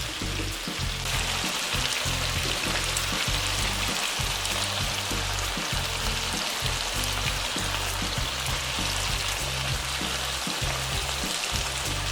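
Food sizzling in hot oil in a pan, a steady crackling hiss that grows louder about a second in, over background music.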